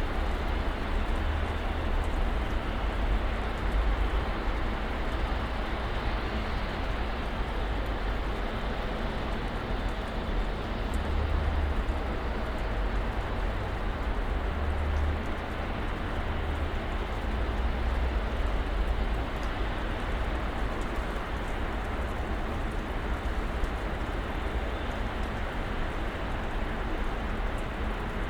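Snowstorm ambience: a steady hiss of wind-blown snow, with a low rumble that swells and fades several times.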